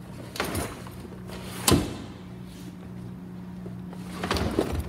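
A fire engine's equipment compartment being handled and shut: a few knocks and clatter with a sharp latch-like click about two seconds in and more knocking near the end, over a steady low hum.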